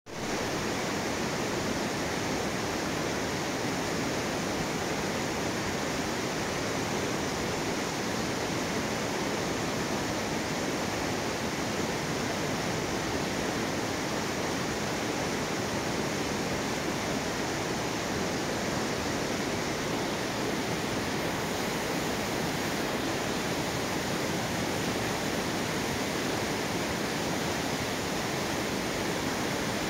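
Fast mountain river rushing over a boulder-strewn bed in white-water rapids, a steady, even rush of water.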